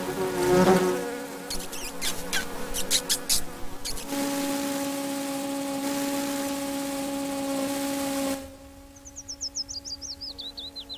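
A cartoon ladybird's wing buzz, a steady, evenly pitched hum, broken by a run of quick sharp clicks a couple of seconds in. Near the end the buzz drops away, and a rapid twittering falls steadily in pitch over a faint hum.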